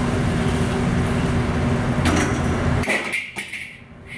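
Steady rushing noise of a commercial wok range with a low hum, and a few sharp metal clinks as a wire strainer basket knocks against the woks around two to three seconds in. The rushing noise drops away sharply about three seconds in.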